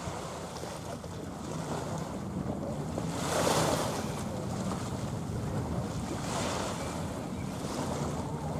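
Wind buffeting the microphone over small waves washing on the shore, with a louder surge about three and a half seconds in and a smaller one about six and a half seconds in.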